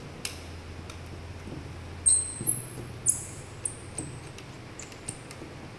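A pen squeaking on paper while lines are drawn: several short, very high-pitched squeaks, bunched about two to three and a half seconds in, with a few light clicks.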